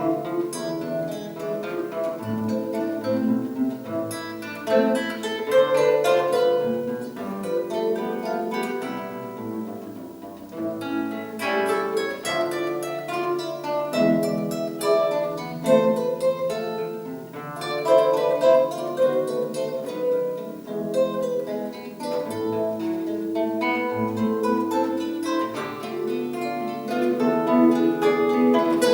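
Instrumental music on plucked string instruments, with a stream of notes that each start sharply and ring away, layered several at a time.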